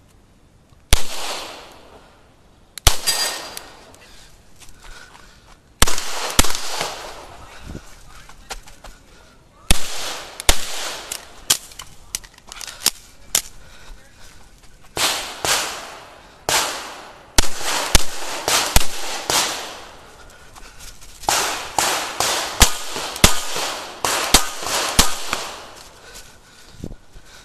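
9mm CZ Shadow 2 pistol fired in quick strings of two to four shots, with short pauses between strings, roughly two dozen shots in all. Each shot is a sharp crack with a brief echo.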